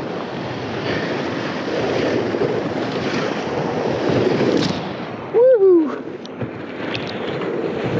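Whitewater rapids rushing steadily around a kayak, with paddle strokes splashing through. About two-thirds of the way through, a short loud vocal whoop rises and then falls in pitch.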